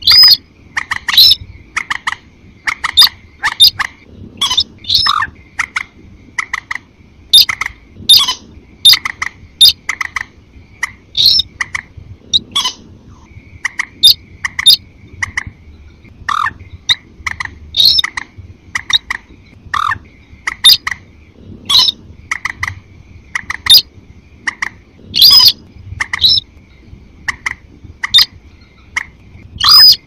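Bird-lure recording of rail calls, sintar crake mixed with moorhen-type calls: a stream of short, sharp, loud calls about one or two a second over a thin, steady, high trill that drops out briefly about halfway through.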